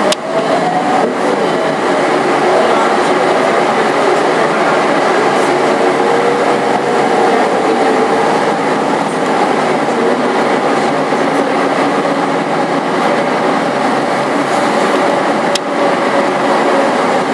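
SOR CN 8.5 city bus under way, heard inside the passenger cabin: steady engine, drivetrain and road noise with a whine that shifts slowly in pitch as the speed changes. A short click sounds late on.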